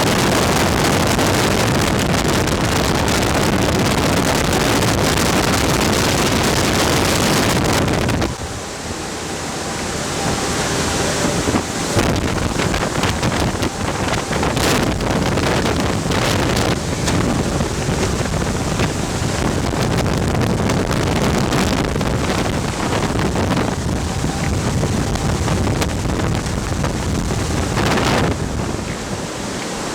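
Strong rush of air driven by a VOD-40 mine ventilation fan, buffeting the microphone as a loud, steady roar. About eight seconds in the roar drops abruptly and carries on a little quieter, with a few short knocks.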